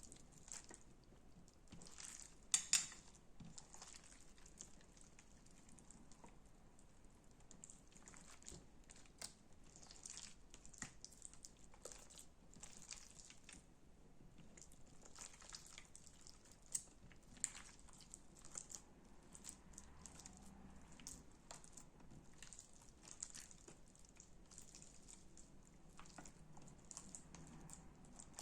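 Slime being squeezed and poked by hand: faint, irregular sticky crackles and small pops, with one louder crackle about three seconds in.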